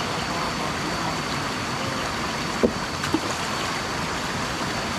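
Stream water rushing steadily, with two short sharp sounds about two and a half and three seconds in.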